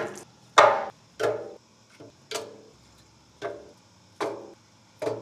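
Wood splits being set one by one into a steel smoker firebox: about eight sharp wooden knocks, each ringing briefly, spaced roughly half a second to a second apart.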